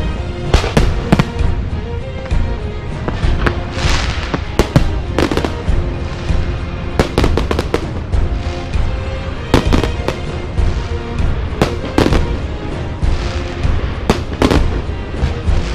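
Fireworks show: sharp bangs of fireworks bursting at irregular intervals, about one to two a second, over continuous music.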